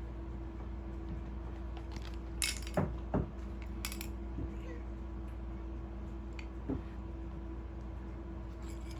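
Mini metal spray paint cans clinking and knocking as they are handled: a few separate clinks between about two and a half and four seconds in, and one more near seven seconds, over a steady low hum.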